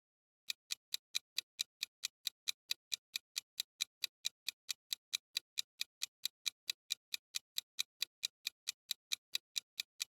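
Clock-like ticking sound effect, an even run of short ticks at about four to five a second, starting about half a second in: a quiz countdown timer running while a question is up.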